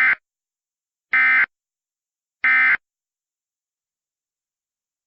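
Emergency Alert System end-of-message data bursts: three short, identical electronic screeches about a second and a quarter apart, the first already under way. They mark the end of an alert message.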